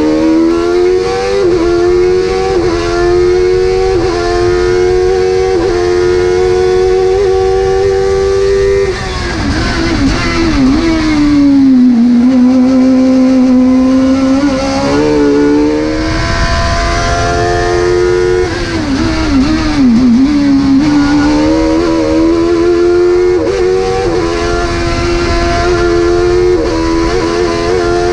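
Speedcar GTR race car's engine heard from inside the cockpit, running at high revs under throttle. Its pitch climbs steadily, then drops and wavers twice, around ten and twenty seconds in, before climbing again.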